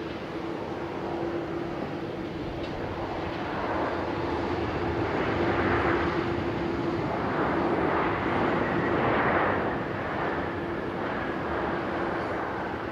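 Jet airliner engine noise that builds over several seconds, peaks, then eases off. A steady hum runs underneath, and a faint whine slides slightly down in pitch near the end.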